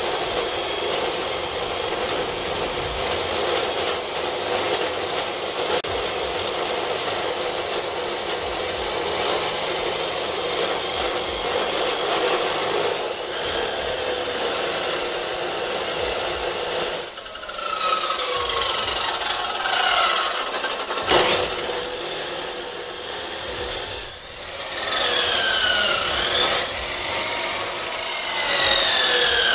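Abrasive-wheel chop saw grinding through 1¼-inch round steel bar stock, a loud, steady grinding. In the second half the sound dips briefly twice and several falling whines appear.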